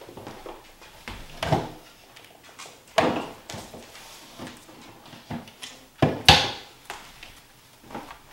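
Wooden cabinet door of a carved sideboard being opened, something put inside, and shut: a few sharp wooden knocks and clatters, the loudest a little past the middle.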